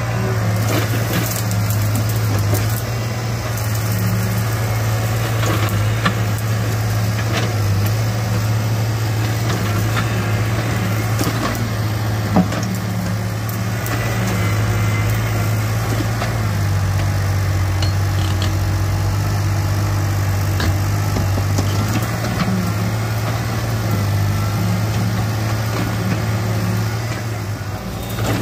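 Yanmar ViO40-2 mini excavator's diesel engine running steadily as the arm and bucket dig, with scattered knocks of the bucket in the soil, the sharpest about twelve seconds in.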